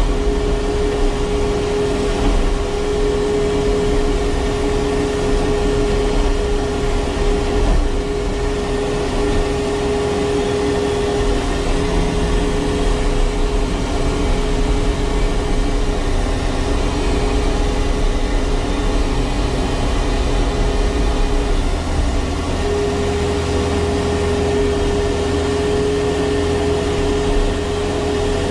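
Takeuchi TB153FR compact excavator working: the diesel engine runs steadily under the hydraulics with a steady high whine over it. About three-quarters of the way through, the engine's low rumble grows heavier.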